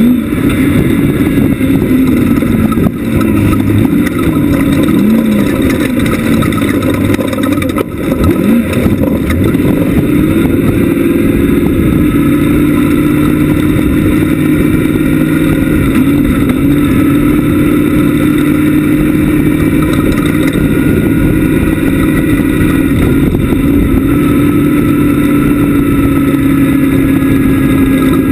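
Class 1 off-road race buggy's engine running hard at race pace, the revs dipping and rising through the first ten seconds, then held high and fairly steady until they drop near the end.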